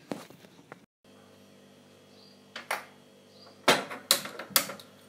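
Steel kitchen utensils clinking against a gas stove: two light clicks, then a run of loud metal clanks lasting about a second.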